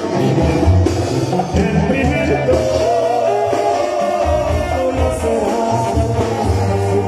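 Live band music during a sound check: a full band playing with a pulsing bass line and a melody over it, possibly with a voice.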